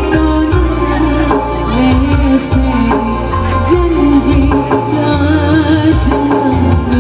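Loud amplified band music: a sung melody over a steady bass line and a drum beat.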